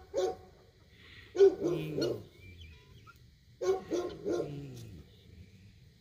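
A dog barking in short bouts of a few barks, about every two seconds.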